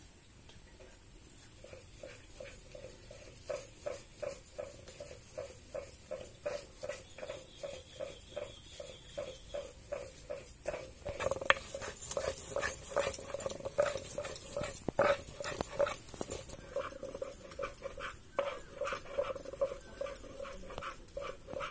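A dog whimpering in short, repeated high cries, about three a second, growing louder about halfway through.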